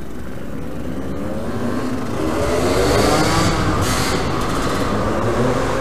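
Off-road motorcycle engine revving up and then easing off again, loudest about three seconds in, over a steady low rumble.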